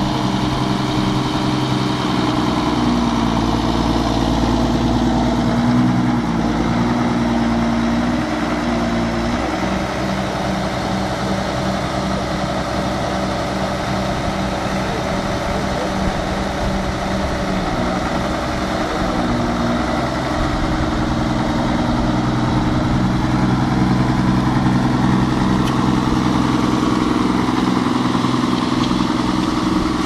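Schlüter Super 1500 TVL tractor's diesel engine running, its speed shifting a few times: higher for several seconds near the start, lower through the middle, and picking up again in the later part.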